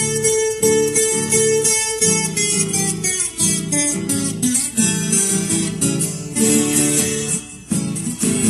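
Viola caipira, the Brazilian guitar with paired steel strings, playing an instrumental passage of quick plucked notes.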